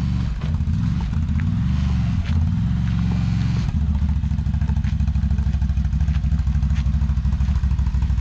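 Engine idling close by with a steady pulsing beat, plus a few faint clicks. About four seconds in, the idle settles into a more even, lower beat.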